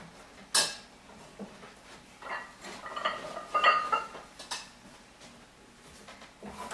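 Scattered metallic clinks and knocks, some with a brief ring, from iron weights being handled and set down on the floor. The sharpest click comes about half a second in, and the densest clatter comes around the middle.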